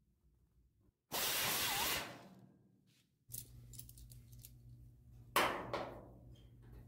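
A drill runs for about a second with a rushing hiss, then spins down. After a break, a locking C-clamp is set on the fuel-filler door flange with small clicks and two sharp metallic snaps.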